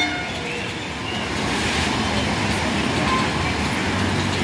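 Chennai suburban electric multiple unit (EMU) train running into the station: a steady rumble with hiss.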